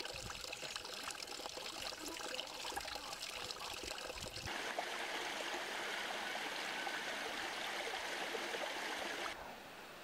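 Valley stream water running and trickling. About halfway through the sound switches abruptly to a steadier, fuller rush of water, which cuts off shortly before the end.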